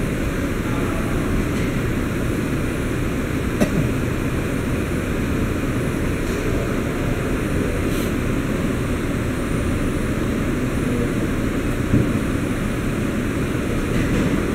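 Steady drone of factory machinery. Three sharp clicks and knocks come a few seconds apart.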